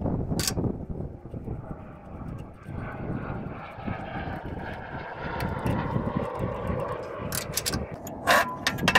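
A distant engine drone that builds from about three seconds in and holds, over a low rumble of wind. A few clicks and one loud sharp knock come near the end.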